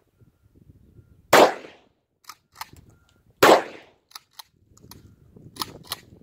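Two shots from a Sarsılmaz M204 pump-action 12-gauge shotgun firing slugs, about two seconds apart, each a sharp blast with a short decay. After each shot comes a quick double clack as the pump is racked back and forward to chamber the next shell, and one more double clack comes near the end.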